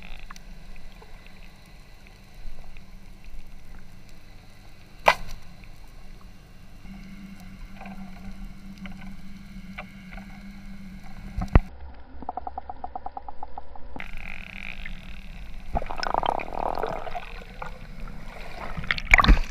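Muffled underwater sound: a steady low hiss broken by a few sharp clicks, the loudest about five seconds in, near twelve seconds and near the end.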